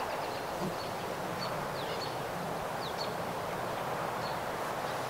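Open-air background: a steady soft hiss with short, high bird chirps about once a second.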